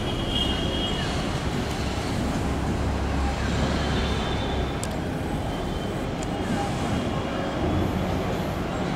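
Steady distant rumble of a wide-body jet airliner's engines as it moves slowly on the airfield.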